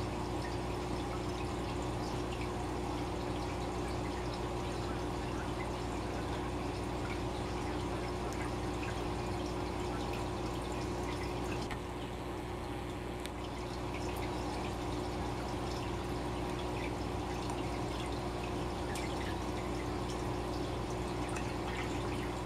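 Running aquarium: a stream of air bubbles and filter water trickling and splashing, with scattered small drips and pops over a steady low hum.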